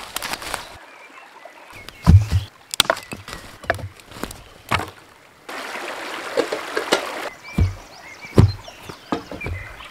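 Boots stepping on stones and leaf-strewn forest floor, with irregular dull thuds and sharp cracks of twigs. A stream runs behind.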